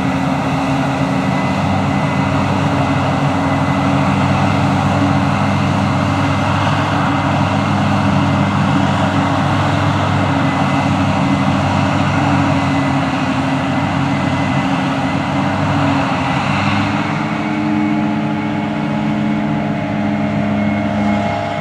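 Large diesel engine of farm machinery running steadily under load, with a dense mechanical rush over its note. The engine note shifts a little higher near the end.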